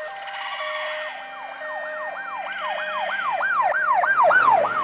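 Emergency siren sound effect played as a high-pitch example: a fast up-and-down whooping tone about three times a second, getting louder toward the end, over a steady two-note hi-lo siren tone.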